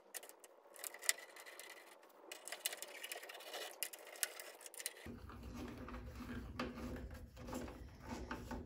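Faint, scattered clicks and light scraping of small screws and a screwdriver being handled while the trim ring around a car headlight is screwed in place.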